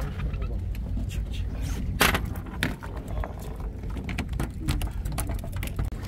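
Steady low rumble of the fishing boat, with scattered irregular clicks and knocks of handling on deck, the sharpest about two seconds in.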